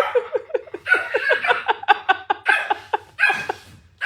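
A dog yipping rapidly: a long run of short yelps that rise and fall, several a second, followed by a few longer cries.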